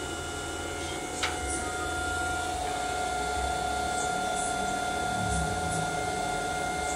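Cooling fans of a Y&H 1000 W grid-tie solar inverter running with a steady whine over a low hum, growing a little louder after a second or so, with one light click about a second in. The freshly replaced fan is running normally.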